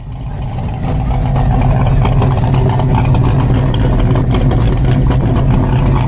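A Buick's engine idling steadily, heard at its single exhaust tip, fading in over the first second.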